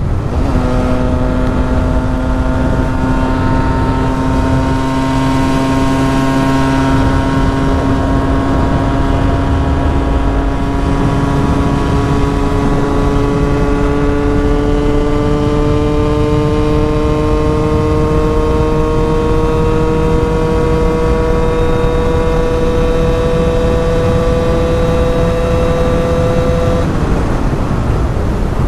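KTM EXC 125 two-stroke single-cylinder engine running hard at high revs in a high gear, its pitch climbing slowly as the bike gains speed, with wind rushing over the helmet camera. Near the end the steady engine note stops.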